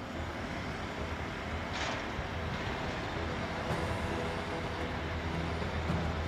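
Heavy-machinery diesel engine running steadily with a low drone during a crane lift of a backhoe loader, with a short hiss about two seconds in.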